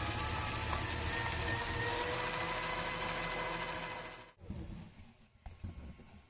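Converted micro-cut paper shredder running with a steady geared-motor whine as it regrinds 3D-printer plastic into small chips on its final pass. It stops abruptly about four seconds in, after which there is faint, irregular rustling of the plastic chips.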